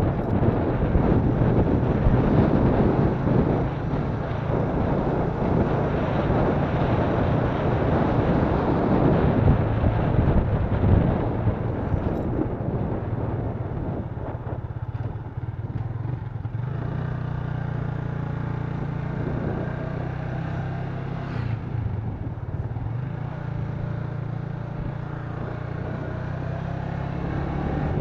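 Yamaha FZ150i's single-cylinder four-stroke engine running on the move, under heavy wind rush on the microphone. About halfway through the wind drops and the engine's steady note comes through more clearly.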